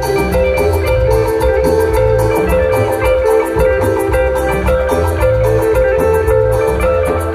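Live band playing Latin dance music through a PA: an instrumental passage with a bright, repeating melody over bass and hand drums in a steady beat.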